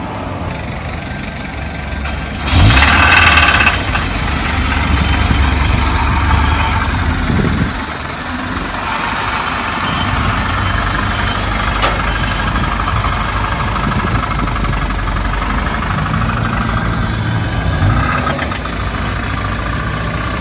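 Toyota MR-S's 2ZZ 1.8-litre four-cylinder engine running with a rattling knock, 'kata-kata', the sound of a failed crankshaft bearing. It gets suddenly louder about two and a half seconds in, for about a second.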